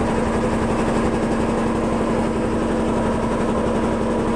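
A boat's engine running steadily at an even speed, with a constant droning hum and a fast low throb.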